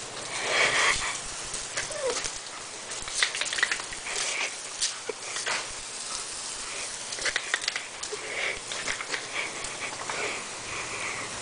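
Welsh Terrier vocalizing excitedly in short calls while it snaps at the spray from a garden hose, with water spattering on the concrete pool deck.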